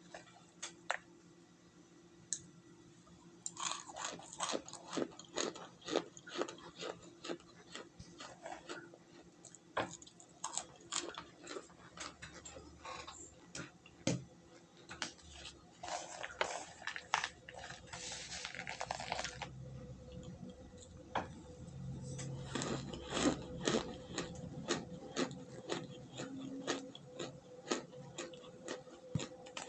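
Close-up chewing and biting of crunchy cornstarch chunks: irregular sharp crunches and crackles. They start a few seconds in and come thickest in a long run past the middle.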